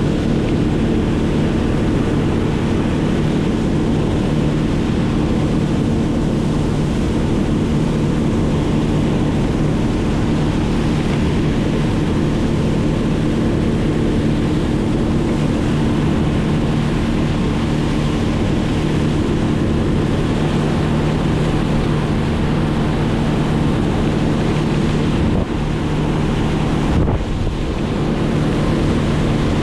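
An engine running steadily at constant speed, with wind rushing over the microphone. The level dips briefly near the end.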